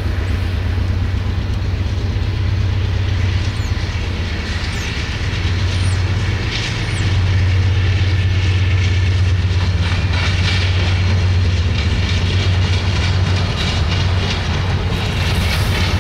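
Diesel freight train rolling past: a steady low locomotive engine rumble that grows louder about seven seconds in, with wheels clacking along the rails as the freight cars go by.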